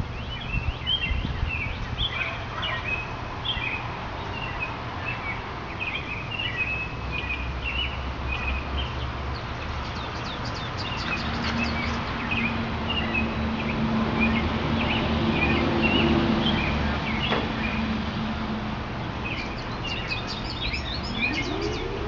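Songbirds chirping over a steady low outdoor rumble, with a low hum that swells and fades in the middle. Near the end an outdoor warning siren starts winding up, its pitch rising: the start of the attack signal in a monthly siren test.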